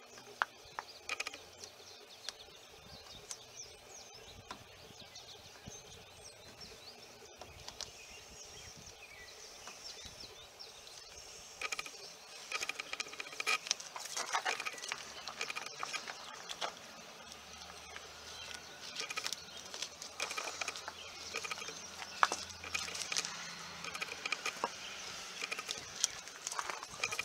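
Painter's tape being peeled off a plastic grille emblem and crumpled in the hand: faint rustling with small sharp crackles, sparse at first and much busier in the second half.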